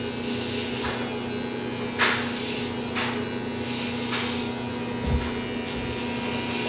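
Electric hair clippers running with a steady hum while cutting thick afro hair, with brief swishes as the blades pass through the hair about once a second and a low bump about five seconds in.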